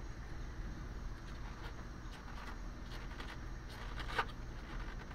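Car on the highway: a steady low rumble of engine and road noise, with a few short clicks, the sharpest about four seconds in.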